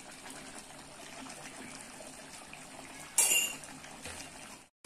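Rendang sauce simmering in an aluminium wok, a steady low bubbling. About three seconds in, one sudden loud clink of a metal utensil against the wok, ringing briefly.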